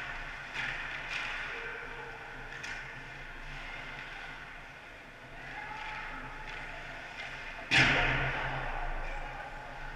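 Ice hockey rink sound heard from behind the net: a steady low hum under faint distant clicks of sticks and puck, with a sudden loud noisy hit about three-quarters of the way through that dies away over a second or two.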